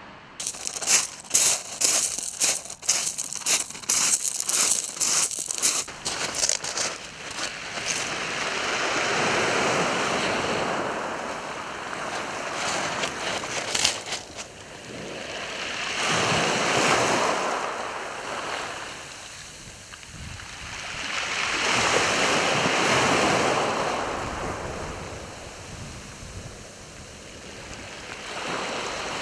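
Small waves from a calm sea breaking gently on a shingle beach and washing over the pebbles, swelling and fading about every six seconds. The first several seconds are full of clattering shingle stones.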